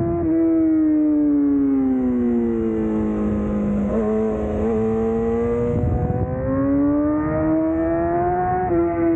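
Yamaha R6's inline-four engine under way. The engine note falls for several seconds as the bike slows, with a couple of short blips about four seconds in, then climbs again under acceleration and drops suddenly at a gear change near the end.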